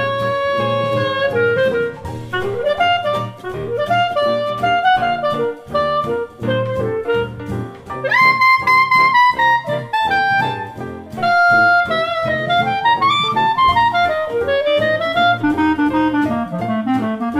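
Background jazz music with a saxophone playing the melody over a steady rhythm section; a loud high phrase comes in about eight seconds in.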